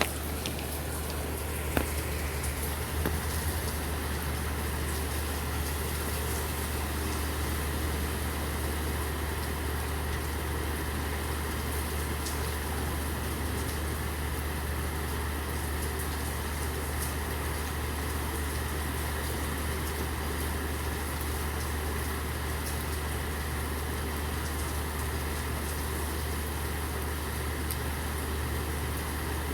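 Steady rain with a vehicle engine idling, its low hum running steadily underneath; a few sharp drips tick in the first couple of seconds.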